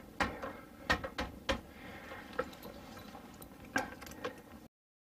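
Scattered light clicks and knocks from hands handling parts and tools, with the sound cutting off to dead silence near the end.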